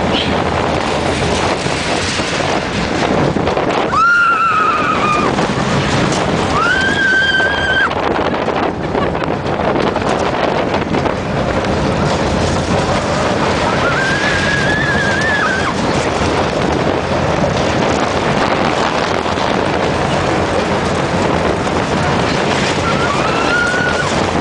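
Roller coaster train running along its track, a steady rush of wind and rumble, with riders screaming four times.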